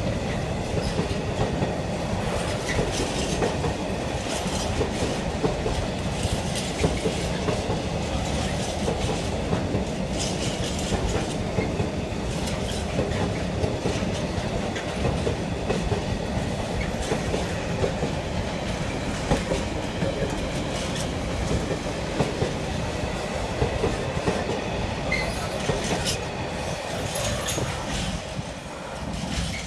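Container freight train's loaded flat wagons running past at close range, a steady rumble with the wheels clicking over rail joints. The sound falls away near the end as the last wagon goes by.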